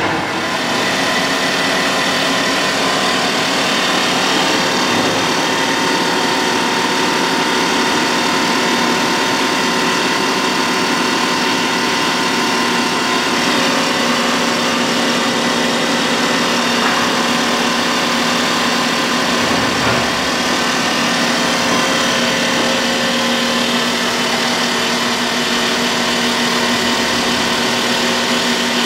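Bridge saw running and cutting into a slab of nano crystallized white glass: loud, steady machine noise with several held tones that does not let up.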